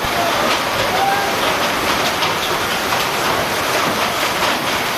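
Heavy rain mixed with hail pelting a wet concrete lane: a dense, steady hiss laced with many small, sharp hailstone impacts.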